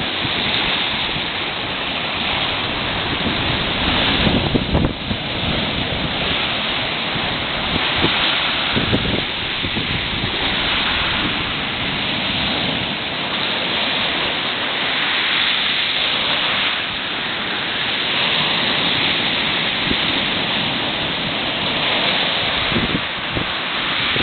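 Sea surf rushing on the shore in a continuous wash that swells and eases every few seconds, with wind buffeting the microphone in a few gusts.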